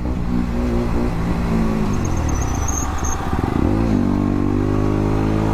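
Motorcycle engine under hard throttle while riding. Its note dips and then climbs again about three to four seconds in.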